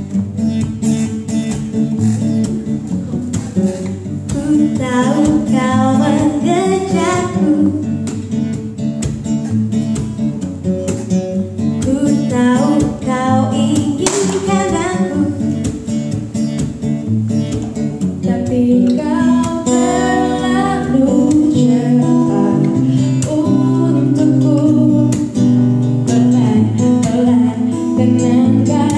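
Live acoustic song: a guitar playing, joined about four seconds in by female voices singing the melody, one woman and then another taking the lead.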